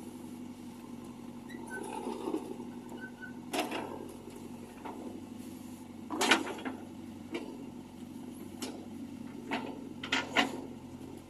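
Backhoe loader's diesel engine running steadily, with a handful of sharp knocks and clanks from the machine's work, the loudest about six seconds in and three close together near the end.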